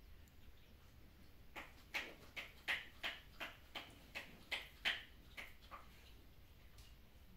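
Newborn Shiba Inu puppy giving a run of about ten short, high squeaks over some four seconds while handled through early neurological stimulation (ENS) exercises, including being held head-down.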